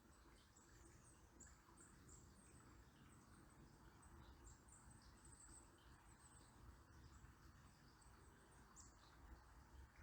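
Faint, high-pitched bird chirps, many short notes scattered throughout, over a soft steady hiss of a river flowing.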